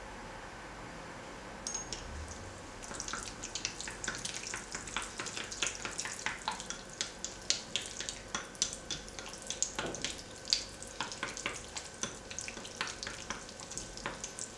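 A flat spatula stirring thick gel base in a glass bowl, slowly working oil into it: irregular wet clicks, several a second, beginning about three seconds in after a single click.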